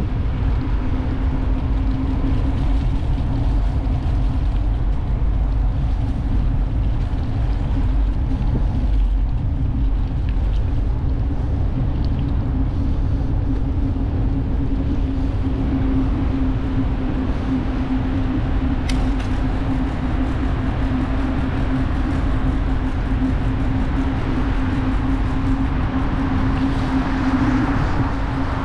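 Wind noise on a bike-mounted action camera's microphone while cycling, with road noise and a steady hum throughout. A single sharp click sounds about two-thirds of the way through.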